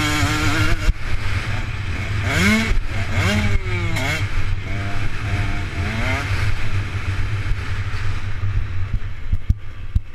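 Motocross bike engine being ridden hard on a dirt track, over a steady low rumble. It revs up, its pitch climbing in three quick runs in the middle, then holds steadier before easing off near the end.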